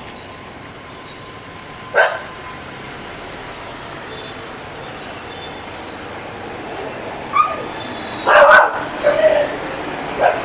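Dogs barking and yelping: one sharp bark about two seconds in, then a quick cluster of barks and yelps near the end.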